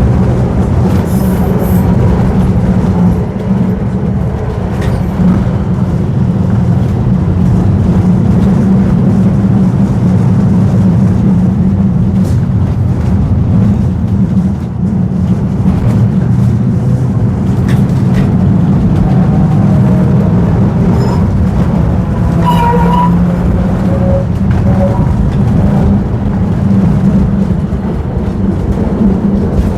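Vintage tram running on its rails: a steady low rumble with occasional clicks and short squeaks.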